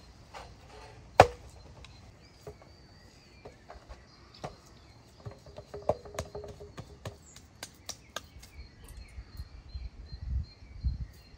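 Hands kneading minced beef in a metal pan: soft wet slaps and small clicks, with one sharp knock about a second in. Birds chirp in the background.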